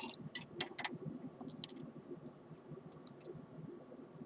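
Light, sharp clicks and ticks of a dropper and glass test tubes being handled in a test-tube rack, about a dozen in the first three seconds, then they stop.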